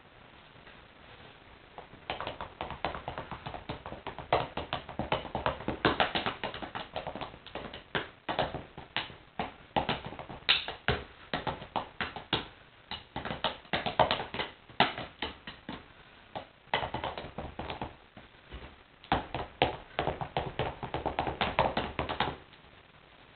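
Wooden drumsticks drumming on a pair of running shoes: fast runs of dull taps in drum-kit-style patterns, starting about two seconds in, with two short breaks, and stopping suddenly near the end.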